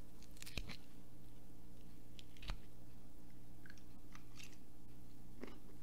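Close-miked eating: a fork picking salad from a bowl, then chewing, heard as a few scattered clicks and soft crunches over a steady low hum.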